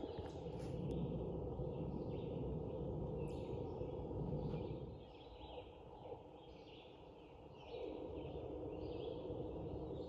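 Woodland birds singing and chirping in short repeated phrases, over a steady low rustling rush that fades about halfway through and comes back near the end.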